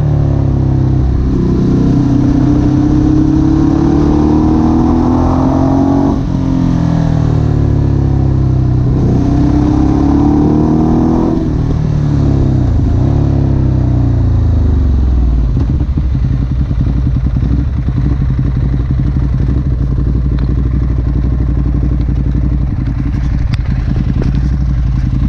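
Ducati Hypermotard SP's V-twin engine: the revs climb slowly, drop back, and climb again, then wind down and settle into a steady idle about two-thirds of the way through.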